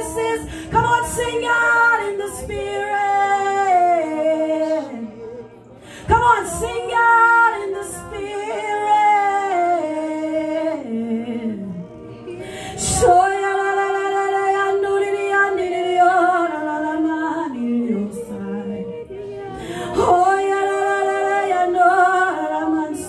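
A woman singing in long sliding phrases that fall in pitch at their ends, with short pauses between phrases.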